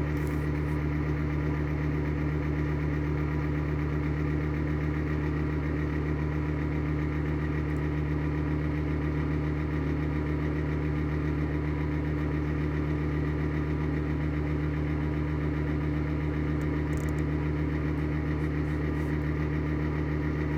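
Exhaust fan running with bad bearings: a steady hum with a fast, even rattle through it that sounds awful, though the fan keeps turning.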